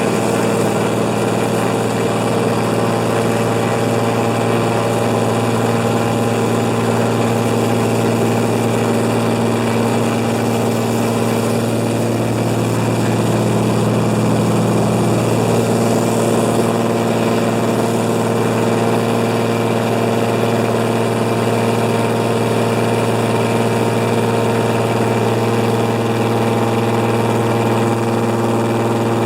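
De Havilland Beaver's engine and propeller running steadily with a loud, even drone, with a small shift in pitch about 12 to 15 seconds in.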